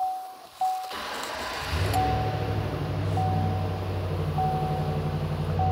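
Chevrolet 6.0-litre gas V8 cranking briefly about a second in and starting right up, then running at a steady fast idle just after the start. A dashboard warning chime dings at an even pace, about once every second and a bit, throughout.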